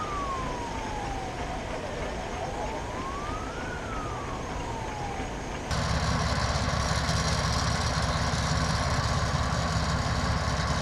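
Emergency-vehicle siren wailing in slow sweeps: it falls, rises and falls again over a noisy outdoor background. About six seconds in, the sound cuts to a louder, steady low hum of an engine running.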